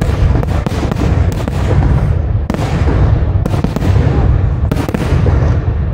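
Large fireworks display: a dense, continuous barrage of booming shell bursts with crackle, punctuated by a string of sharp reports.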